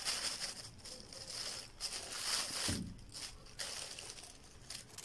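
Soft rustling of a small paint-loaded sponge being dabbed against a lace-wrapped plastic bottle, in short stretches, with a low soft bump a little under three seconds in.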